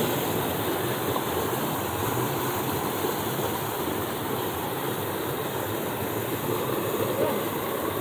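Steady rushing noise with no distinct events.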